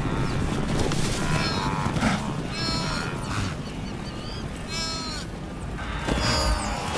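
Wildebeest bleating in distress as a leopard attacks it: a string of short calls that bend in pitch, over steady background noise.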